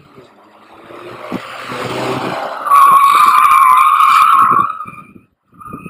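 Front-wheel-drive car approaching with its engine growing louder, then its tyres squeal loudly for about two seconds as it is thrown into an oversteer slide through the bend, fading as it goes away.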